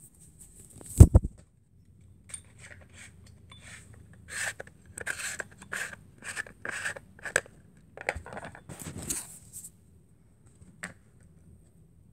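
Handling noise: a heavy bump about a second in, then a run of short scraping, rubbing strokes, roughly two a second, from about four to nine and a half seconds in, and a single click near the end.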